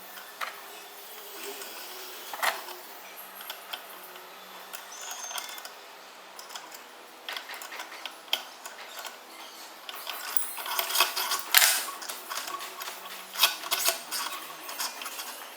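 Steel vise parts clinking, clicking and rattling as they are handled and fitted together, in irregular knocks that get busier about ten seconds in.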